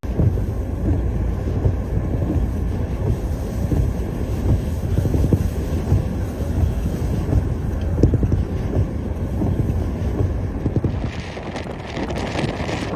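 Strong blizzard wind buffeting the microphone, a loud rough low rumble. About eleven seconds in, a higher hiss joins it.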